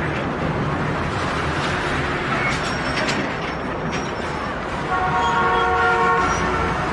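Steady background noise of a busy public waiting hall, with a multi-note horn sounding steadily for about a second and a half, about five seconds in.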